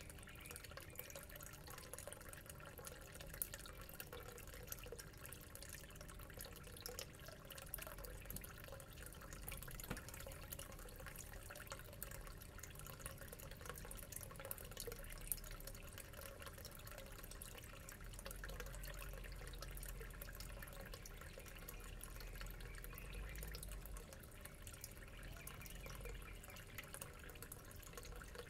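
Faint aquarium water bubbling and trickling from the aeration in goldfish tanks, a steady crackling fizz with a low steady hum underneath.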